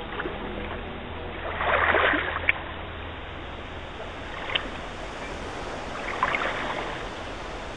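Small waves lapping in shallow water over a pebble and stone shore, a steady wash that swells about two seconds in and again near the end. A couple of short sharp clicks come between the swells.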